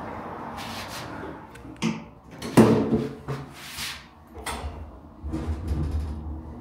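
Lift car and its sliding doors clunking and rattling in a series of knocks and short sliding noises, the loudest about two and a half seconds in, with a low hum setting in near the end.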